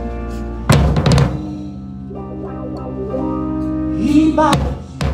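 Drum kit played with sticks in a live band, with a fill of several quick strikes about a second in and more hits near the end, over sustained notes from the rest of the band.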